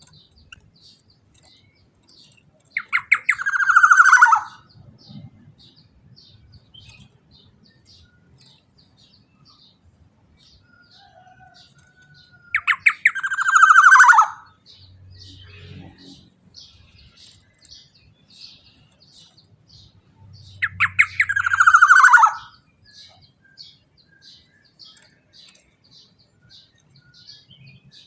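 Black-naped oriole (kepodang emas) giving three loud, harsh calls several seconds apart, each opening with a quick stutter of notes and sliding down in pitch. Faint, high, short chirps repeat steadily in the gaps.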